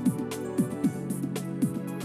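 Instrumental background music with a steady beat, about two strikes a second.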